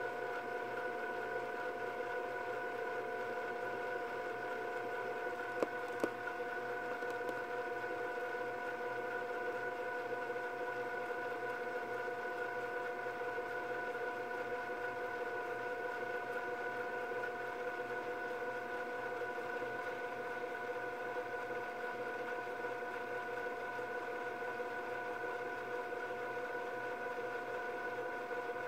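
Panasonic NV-MS1 S-VHS camcorder's tape transport fast-forwarding an E180 cassette: a steady mechanical whir with several held tones. Two small clicks come about six seconds in.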